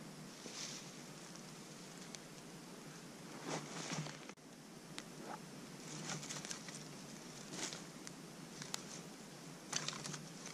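Small campfire of dry tinder and twigs just catching, with scattered light crackles and the rustle of sticks being laid on it.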